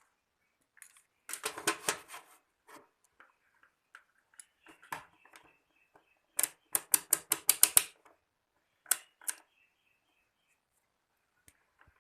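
Multimeter being handled: two bursts of rapid, sharp clicks about a second in and again from about six to eight seconds in, with faint short high beeps in between.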